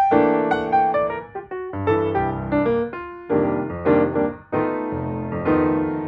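Background piano music: notes and chords struck one after another, each fading after it is played.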